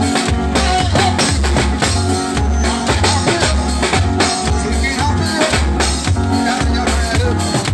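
Nine-night band music played loud through large loudspeaker boxes: drums over a heavy bass line with notes about twice a second.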